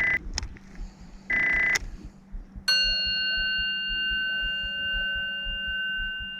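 Two short buzzy tones, then a single bell-like chime struck about 2.7 s in that rings on for about four seconds, slowly fading.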